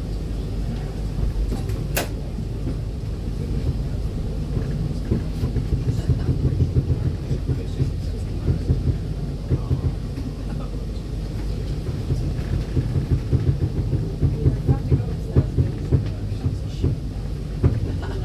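Melbourne E2-class tram running along the street, heard from inside the passenger cabin: a steady low rumble from the wheels on the rails and the running gear, with frequent rattles and knocks and one sharp click about two seconds in.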